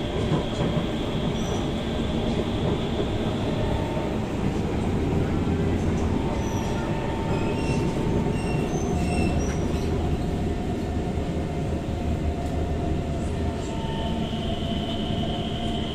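SMRT C151 metro train running at speed, heard from inside the passenger car: a steady rumble of wheels on rails, with a thin high whine for the first few seconds and again near the end, and a few short high squeaks in the middle.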